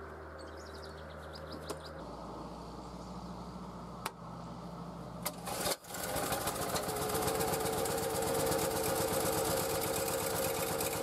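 Honda EM2200X portable generator pull-started: a couple of clicks, a yank of the recoil cord, and the four-stroke engine catches about six seconds in and runs steadily with an even rhythm.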